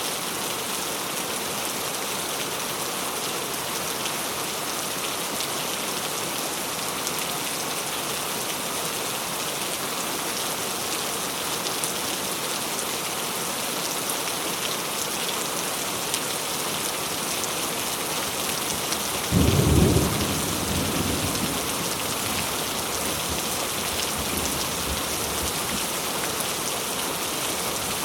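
Steady rain falling. About two-thirds of the way through, a sudden loud thunderclap cracks and then rumbles away over a few seconds.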